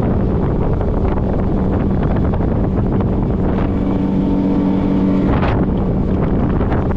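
Motorboat running steadily with heavy wind rushing over the microphone; a low engine hum sits under the noise, strongest in the second half.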